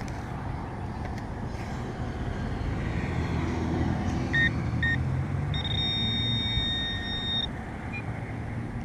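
Metal detector's high-pitched target tone: two short beeps about four seconds in, then a held tone for about two seconds. Under it, the low rumble of a passing vehicle.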